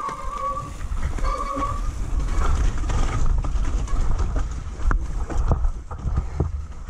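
Mountain bike riding downhill on a wet trail: a steady low rumble of wind and movement on the bike-borne microphone, with knocks and rattles from the bike over rough ground.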